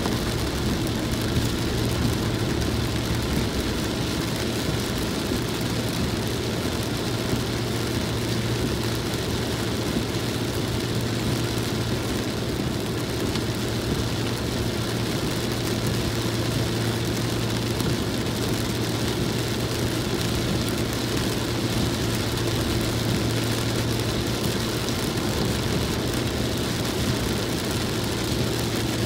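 Steady drone inside a moving car in heavy rain: a constant low engine hum over an even hiss of tyres on the wet road and rain on the windshield.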